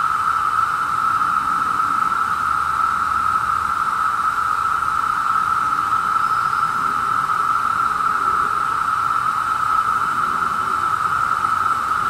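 Chorus of periodical cicadas (Magicicada) singing: a loud, steady drone held at one pitch without a break.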